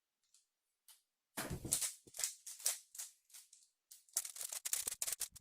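Rubik's cube being turned rapidly by hand during a speedsolve: plastic layers clacking and rattling in quick irregular bursts. It starts about a second and a half in and becomes a dense run of fast turns from about four seconds.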